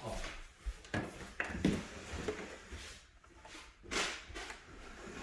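Irregular wooden knocks and scrapes from a built-in closet's doors and drawers being opened and handled, with a louder knock about four seconds in.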